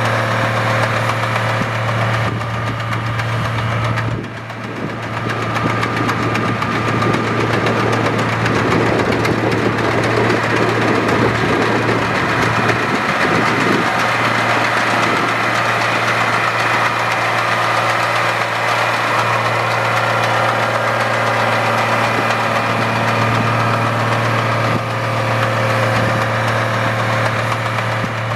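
Case IH Magnum tractor's diesel engine running steadily while pulling a six-row potato planter, a continuous drone with diesel clatter and a brief dip in level about four seconds in.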